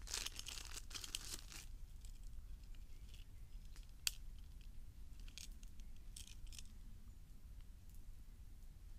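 Handling of a small plastic survival multi-tool: rustling and crinkling for about a second and a half, then one sharp click about four seconds in, followed by a few fainter clicks and rustles.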